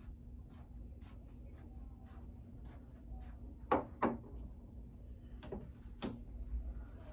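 Light knocks and clacks of things being handled and set down on a table, over a low steady room hum. Two sharp knocks come close together about halfway through, and another near the end.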